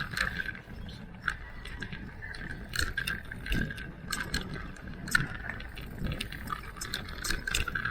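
Electric mountain bike ridden over a rough trail: the chain and frame rattle and click over the bumps, over a steady mechanical buzz and low rumble.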